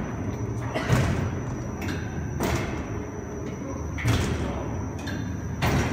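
Pneumatic lift system of a kangaroo jump amusement ride: a short, sharp burst of air hiss with a thud about every second and a half, four times, as the seats are driven up and down, over a steady low rumble of the running ride.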